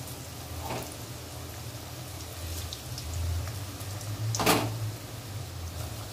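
Chicken pakoras deep-frying in hot oil in a kadai, a steady sizzle with scattered faint crackles over a low hum. A single sharp knock about four and a half seconds in.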